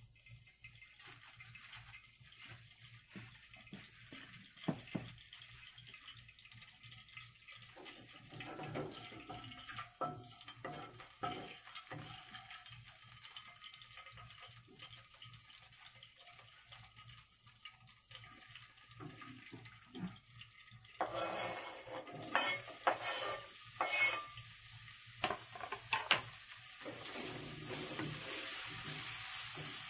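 Oil heating quietly in a wok on a gas burner, with scattered small clicks. About two-thirds of the way in, chopped garlic and leek whites go into the hot oil and start sizzling, with sharp knocks of a wooden spatula against the pan as they are stirred; the sizzle grows steadily louder near the end.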